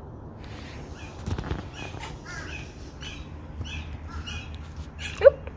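A three-week-old silver Persian kitten giving small squeaky mews, with one loud, short squeal falling in pitch near the end.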